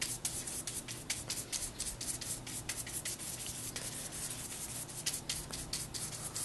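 Paintbrush stroking lemon juice onto the edges of thick paper: quick, scratchy brush strokes, several a second.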